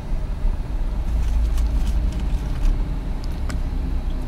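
Road and engine rumble heard from inside the cabin of a moving vehicle, steady and deep, with a few light ticks or rattles scattered through it.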